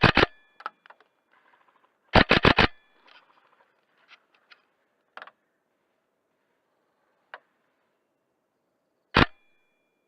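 Airsoft gun shots close to the gun-mounted microphone, each a sharp crack with a brief metallic ring: a shot or two at the start, a rapid burst about two seconds in, and a single shot near the end. Fainter clicks and cracks sound in between.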